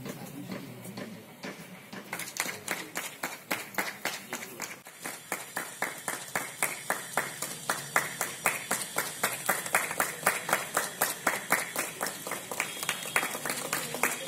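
Hand clapping by an audience. It starts about two seconds in and settles into an even beat of about four claps a second.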